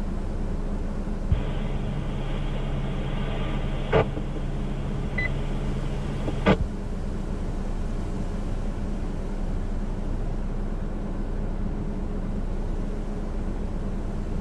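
Steady low hum under a two-way radio scanner channel. About a second in, the channel opens with a click and carries static hiss and a short beep with no voice for about five seconds, then closes with another click.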